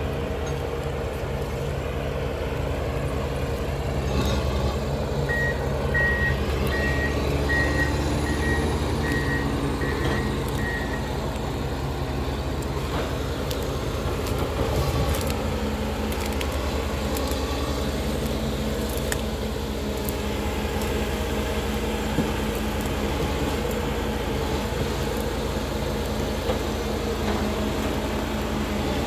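Ponsse Elephant King eight-wheel forwarder's diesel engine running steadily as the machine moves and works its crane. About five seconds in, its reversing alarm sounds a row of even beeps for about six seconds; later come sharp knocks of logs being handled in the grapple.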